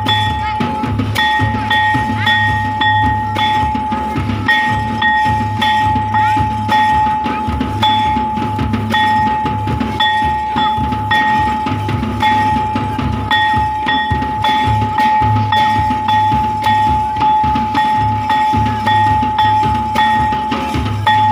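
Village folk-dance drumming: large drums beat a steady, driving rhythm under a high, held piping tone that pauses only briefly, with many short clicks over the top.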